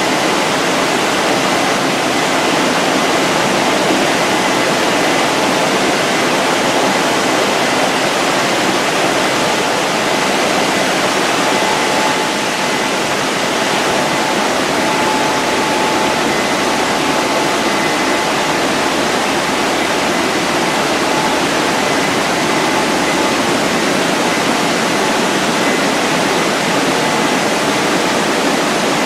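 WashTec rollover car-wash dryer blowers running, a loud steady rush of air with a faint high whine from the fans, as the gantry travels over the car.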